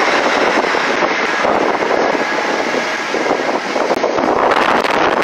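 Loud, steady engine noise with no breaks or changes in pitch.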